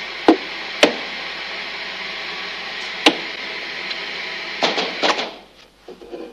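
Television static hiss that cuts off suddenly about five seconds in as the set is switched off. Three sharp knocks come near the start and about three seconds in, and a quick run of clicks and knocks comes just before the hiss stops.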